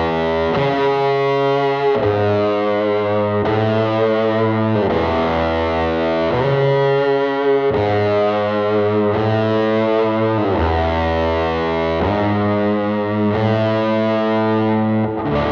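Electric guitar played through a Pelt fuzz, Catapulp overdrive, Marine Layer reverb and Mimiq doubler into a Fender '68 Princeton Reverb amp. It rings out distorted sustained chords that change about every one and a half seconds.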